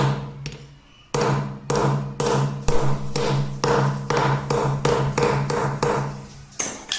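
Hammer tapping lightly and steadily, about three taps a second after a short pause near the start, to drive a Teflon-taped threaded fitting into a PVC tap connector whose worn thread no longer grips.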